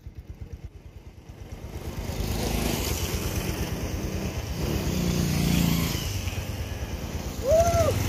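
A motorcycle engine running, growing louder over the first two seconds and then holding steady. Near the end there is a short tone that rises and falls in pitch.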